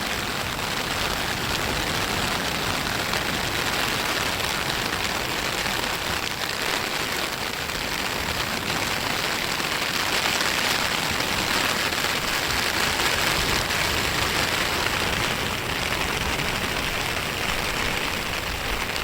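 Small surf breaking and washing on a sand beach: a steady rushing hiss that swells a little about midway and eases again.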